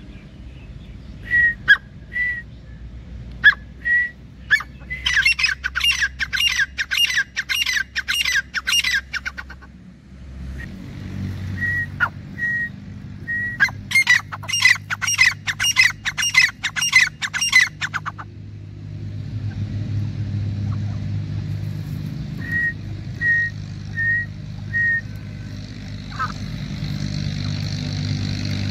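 Grey francolins calling. Short single whistled notes come first, then two runs of rapid repeated calls, several a second, each lasting about four seconds, then a few more single notes. A steady low drone runs under the last third.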